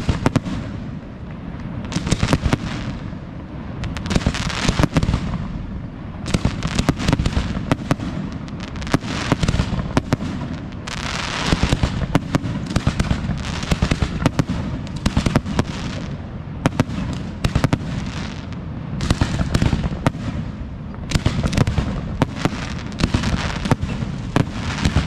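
Fireworks display: aerial shells bursting in quick volleys, with many sharp bangs and pops coming in clusters every couple of seconds over a steady low rumble.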